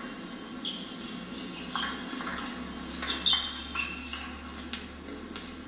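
Table tennis rally: the celluloid-type ball clicking sharply off bats and table, several hits spaced irregularly, with short high squeaks of sports shoes on the hall floor. The hits fall in the middle of the stretch and stop near the end.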